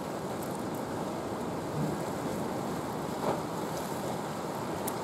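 Steady outdoor wind and sea wash, with wind rumbling on the microphone, and a few faint clicks.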